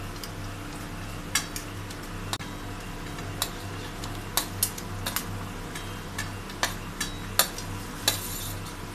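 Steel spoon clinking against a steel plate and pan as fried chicken pieces are added to simmering sauce: about ten sharp, irregular clinks over a steady bubbling of the sauce and a low hum.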